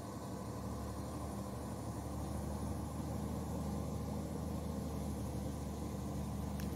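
Diesel engine of a laden Mitsubishi Fuso truck running steadily as it approaches, a low hum growing slowly louder.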